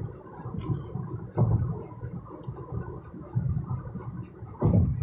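Road noise inside a car's cabin at highway speed: a low, uneven rumble of tyres and engine, with two short thumps, about a second and a half in and near the end.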